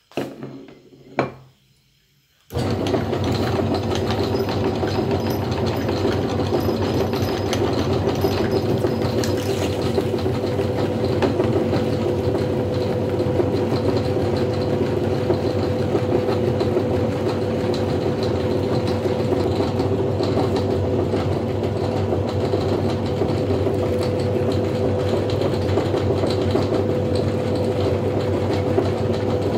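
A plate knocks down on a wooden table, then about two and a half seconds in a motor-driven meat grinder switches on and runs with a steady, even hum while soft cake is fed through it.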